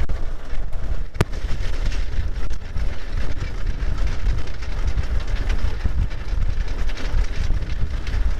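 Model T rail speeder running along railroad track: engine running and steel wheels rolling on the rails, with heavy wind noise on the microphone. A sharp click about a second in.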